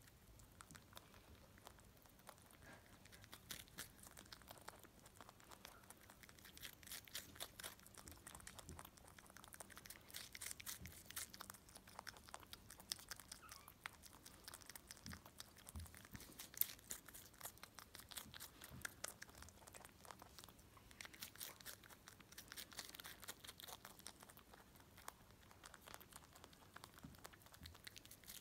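Rabbit chewing a strawberry: faint, rapid clicking of its teeth in runs of chomping with short pauses.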